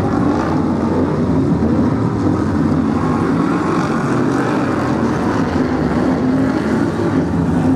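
A pack of Brisca F1 stock cars racing around the oval, their V8 engines running loud and steady together.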